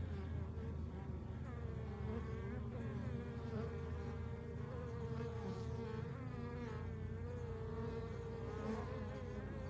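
Honeybees buzzing close by: a steady hum that wavers slightly in pitch.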